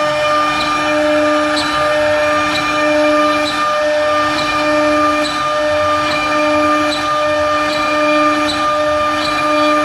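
IR2030 CNC router spindle running a 12 mm ball-nose bit as it carves a relief into pine: a steady high whine over the hiss of the bit cutting the wood.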